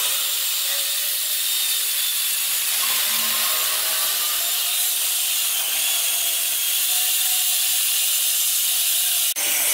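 Angle grinder with an abrasive disc running steadily against carved wood, smoothing the surface of a wooden vase, with a continuous high hiss of grit on wood.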